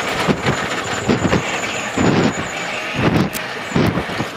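In-car noise of a GAZ rally car driven at speed on a stage road: a steady rushing roar of engine, tyres and road with several heavy thumps from the underbody and suspension, roughly one a second.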